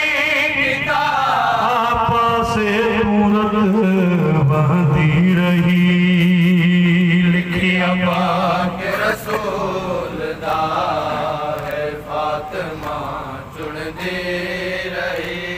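A man's voice chanting a marsiya, a Shia elegy, through a handheld microphone, with long, drawn-out, wavering notes. About seven seconds in the long notes stop, and quieter, broken-off vocal sounds follow.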